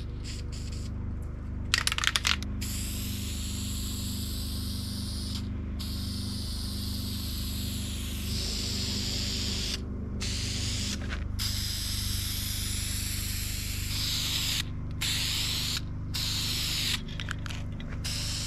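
Aerosol spray-paint can (rattle can) hissing in long passes with short breaks between them, spraying paint onto metal door hardware. A short burst of clicks comes about two seconds in, before the longer spraying starts.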